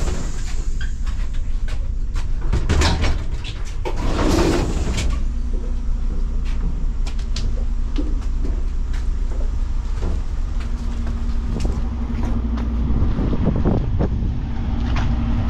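Diesel multiple-unit train (DR1AM) standing at the platform with a steady low engine rumble. In the first five seconds there is a scatter of clicks and knocks as passengers step off through the door, and a steady hum joins in about ten seconds in.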